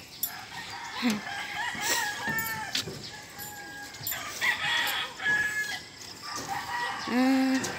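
Roosters crowing, several drawn-out crows one after another at different pitches.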